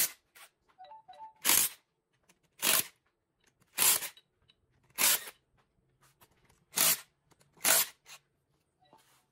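Cordless impact wrench hammering on the crankshaft main bearing cap bolts of an engine block in seven short bursts, about one a second.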